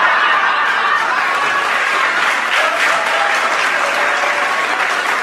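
Live audience applauding steadily, the reaction to the punchline of a told joke.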